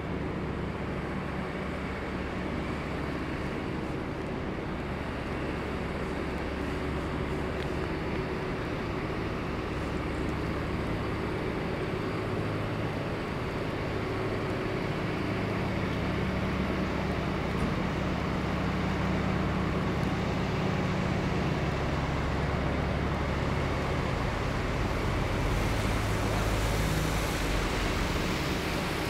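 City street traffic: motor vehicle engines running with a steady low hum under road noise, growing a little louder about halfway through.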